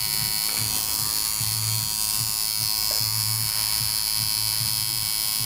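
Electric tattoo machine buzzing steadily as its needle works into the skin.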